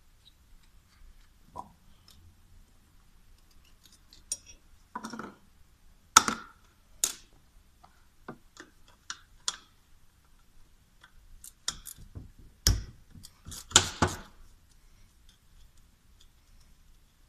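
Scattered metallic clicks, clinks and knocks of hand tools and turbocharger parts being handled on a workbench during disassembly, with a few louder knocks around the middle.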